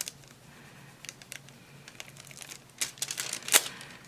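Small clicks, taps and crinkles of thin nail transfer foil being pressed onto and peeled off nail tips, with a sharper click about three and a half seconds in.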